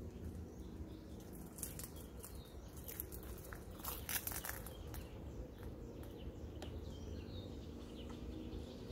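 Outdoor ambience: a steady low rumble, a few soft clicks in the middle, and faint short bird chirps near the end.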